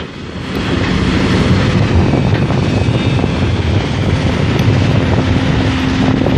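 Hidromek HMK 220 crawler excavator's diesel engine running steadily under load at close range while it digs, with a steady hum held for about two seconds near the end.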